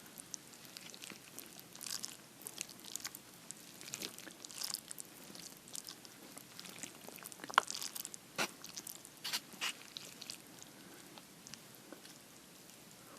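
Close-miked eating of instant noodles: irregular wet chewing and mouth clicks with small crackles, one sharp click about seven and a half seconds in being the loudest.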